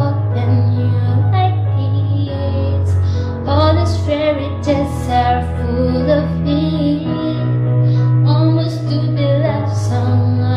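A female voice singing a wordless melodic line with sliding pitch over a backing track with sustained bass notes.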